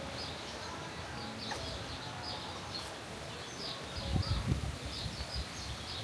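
Outdoor ambience of small birds chirping over and over, short high chirps all through. From about four seconds in there are low, uneven rumbles of wind buffeting the microphone.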